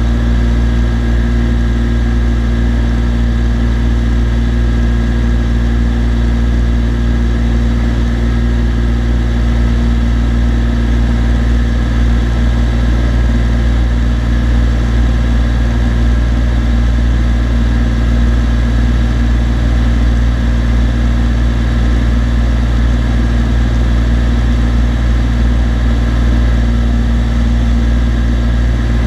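Cessna TU-206D's turbocharged six-cylinder piston engine and propeller droning steadily in flight, with no change in pitch or power.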